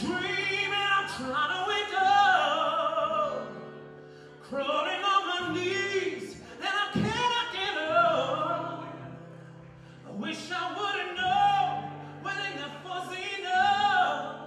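Operatic solo singing with a wide vibrato over held low accompaniment notes, sung in three long phrases with brief breaths between them.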